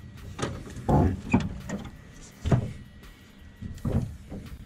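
A car's hood latch being released under the grille and the hood lifted open: a few separate metal clunks and rattles, the loudest about a second in and again about halfway through.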